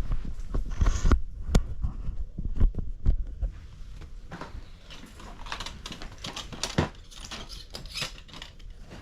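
Handling noise while a pet rabbit is put into a hard-sided plastic carrier. A run of knocks and thumps comes over the first few seconds, then lighter clicks and rustling.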